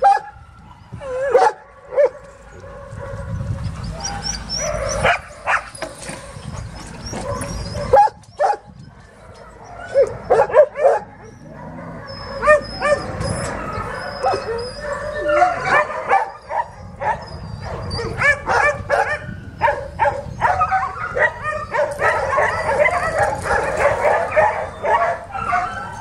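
Many shelter dogs barking, yipping and whining at once, with sharp single barks early on. The calls overlap into a denser, louder chorus in the second half.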